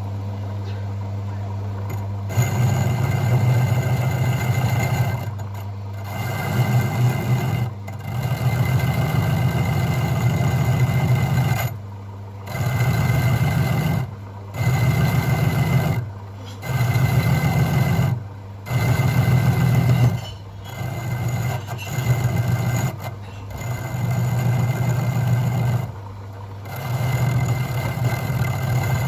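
Homemade electric motor-driven grinder or wire-brush wheel running with a steady hum. From about two seconds in, a metal workpiece is pressed against the spinning wheel again and again, in strokes of one to two seconds with short breaks, each adding a loud grinding rasp.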